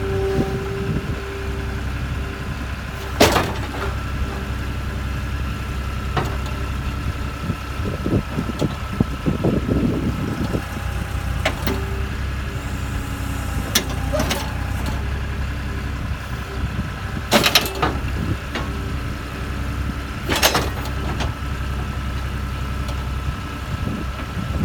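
John Deere 240 skid steer's diesel engine running steadily, with several sharp knocks: one about three seconds in and two close together near the end.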